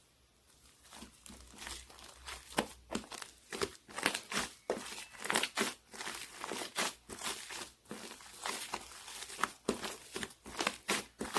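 Purple slime being squished and worked by hand as foam is mixed in, giving irregular sticky crackles and pops. They start about a second in and grow denser and louder.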